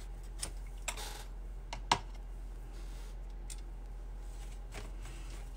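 A few light clicks and taps from a paintbrush and a watercolor pan palette being handled, the sharpest click about two seconds in, over a steady low hum.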